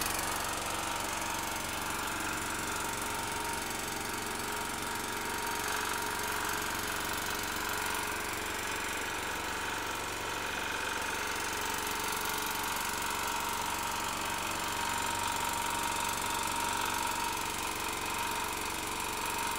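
Small portable petrol generator converted to run on LPG (cooking gas), its engine running steadily at a constant speed with the petrol supply shut off. The conversion is working.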